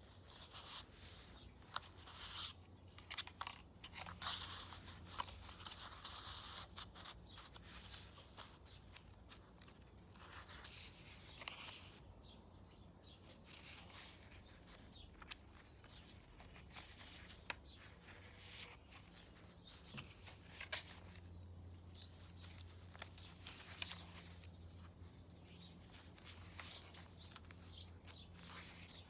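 Paper pages of a handmade journal, made from book pages and recycled papers, rustling and crinkling as they are handled and turned, with irregular crackles throughout that are busiest in the first half.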